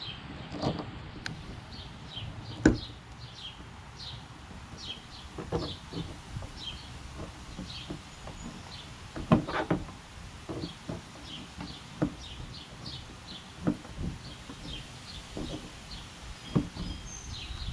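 Scattered clicks and knocks of pliers working at the front of a lawn tractor's plastic hood, the loudest about 3 s and 9 s in. Small birds chirp over and over in the background.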